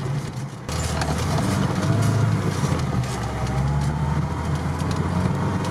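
Cabin noise of an off-road vehicle driving on a snowy track: steady low engine and drivetrain hum with road noise, which jumps abruptly louder less than a second in.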